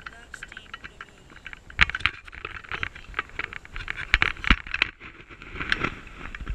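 Close crunching and scraping on dry dirt and gravel with sharp knocks, as someone moves right beside the ground-mounted camera and handles it. The loudest knocks come about two seconds in and twice just past four seconds.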